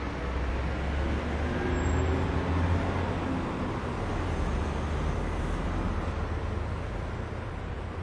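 Car engines and road traffic: a steady low rumble that swells a little about two seconds in.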